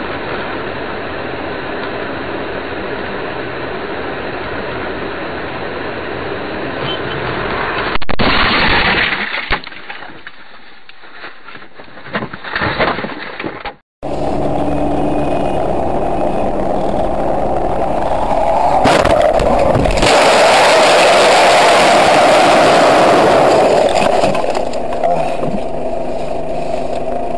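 Dashcam sound of driving: steady engine and road noise heard from inside a car. About eight seconds in comes a sudden loud crash, followed by scattered knocks and clatter. Then a second recording of steady driving noise, which grows louder around twenty seconds in.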